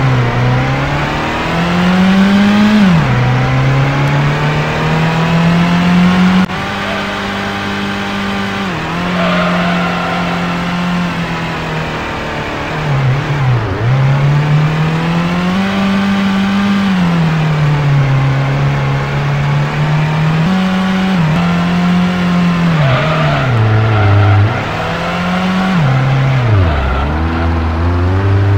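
Car engine driving, its pitch rising and falling over and over as it speeds up and slows, with several sharp drops in pitch.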